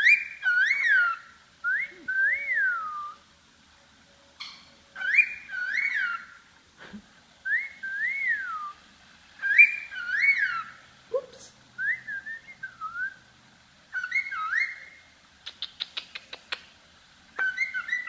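Cockatiel wolf whistling: about seven repeated phrases of swooping whistles, each note rising and then falling in pitch. A quick run of clicks comes about fifteen seconds in.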